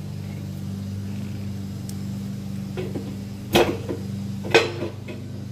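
Two sharp metal clinks about a second apart, a few seconds in, as tools and metal parts knock against the dishwasher door, over a steady low hum.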